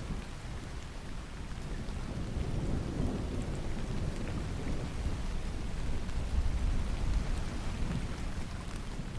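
Steady rain with a low rumble of distant thunder underneath, the rumble swelling a few seconds in and again, loudest, about two-thirds of the way through.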